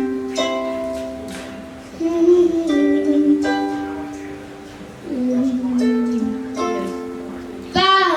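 Song introduction on a strummed acoustic string instrument: slow chords, a new one struck about every one and a half seconds and left to ring.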